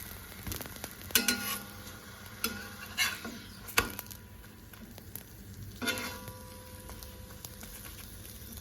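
Aloo paratha frying in ghee or oil on a flat griddle (tawa): a steady faint sizzle, broken a few times by sharp metal clinks and scrapes on the pan as the paratha is turned.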